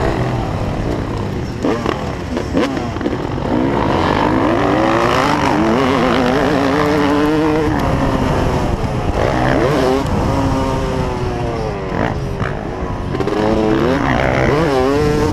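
Yamaha YZ250 two-stroke single-cylinder dirt bike engine revving hard under racing throttle, its pitch climbing through long pulls and dropping with each shift or throttle lift.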